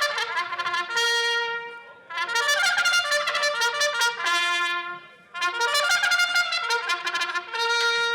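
Trumpet playing three short phrases with brief pauses between them. Each phrase ends on a long held note.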